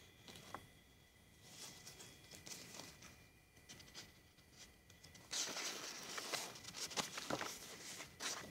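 Close rustling and scratching: scattered crackles at first, then a louder run of dense scrapes and crackles from about five seconds in, over a faint steady high tone.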